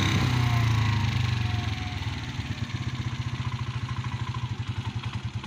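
Motorcycle engine slowing down as the bike rolls toward a stop. The low engine note drops gradually in loudness and settles into a rapid, even pulsing of low revs.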